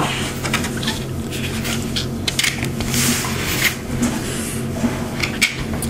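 Small plastic toy parts, a ring and a stamp from a Kinder Surprise capsule, clicking and scraping as they are handled, over a steady low hum.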